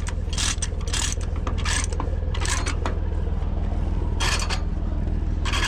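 Tie-down chains and binders clanking and rattling in short, irregular bursts, over an engine idling steadily.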